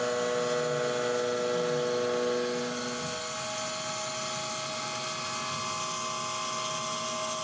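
CNC gantry mill cutting aluminium with an end mill under flood coolant: a steady, many-toned spindle and cutting whine over a hiss. A low tone drops out and the sound eases slightly about three seconds in.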